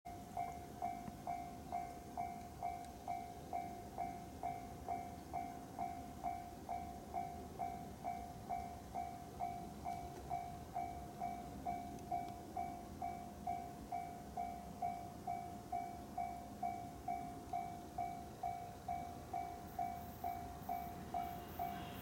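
Japanese level-crossing warning bell ringing, an even electronic ding about three times every two seconds. It signals that the barrier is down and a train is approaching.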